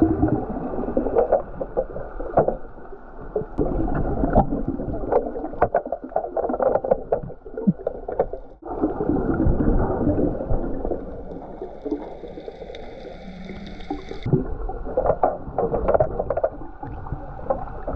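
Muffled underwater noise heard through an underwater camera's housing as a snorkeler dives for trash, with scattered clicks and knocks.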